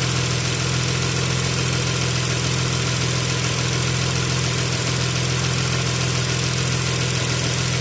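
Chrysler Pentastar V6 idling steadily, with a light valvetrain ticking from the passenger-side bank that the owner puts down to the lifters and rocker arms on that side.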